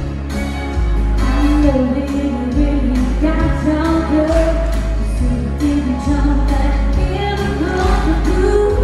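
Live country song: women singing over acoustic guitars, with a steady bass and drum beat.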